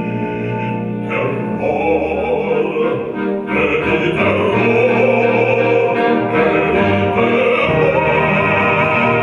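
Operatic music: a wind orchestra of woodwinds, brass and harp accompanying a bass singer, swelling to a fuller sound about three and a half seconds in.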